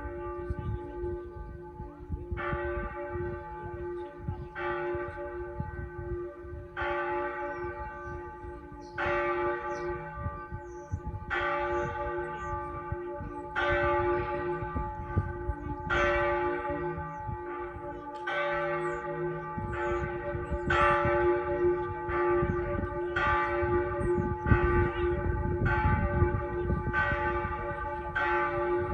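Pershore Abbey's church bells ringing, with only a few of the ring's bells in use. The strokes come about every two seconds at first, then closer together, about one a second, after roughly twenty seconds. Each stroke rings on into the next, over a low rumble.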